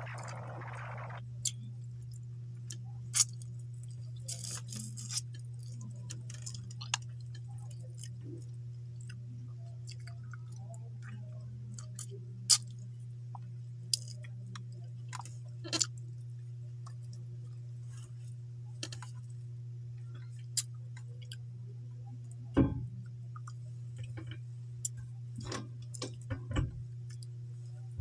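A person eating rice and vegetables by hand: chewing and mouth smacks heard as scattered sharp clicks, coming more often near the end, over a steady low hum.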